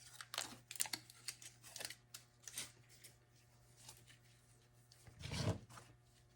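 Tape being peeled off an armor part in several short rasping rips, with a louder rip or rustle near the end.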